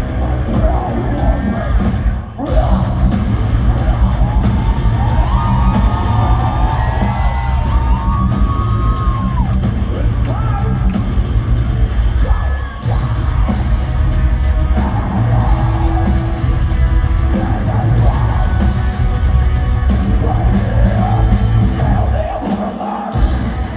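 Heavy metal band playing live: loud distorted guitars and heavy drums under yelled and sung vocals, with two brief breaks in the music about two seconds and thirteen seconds in.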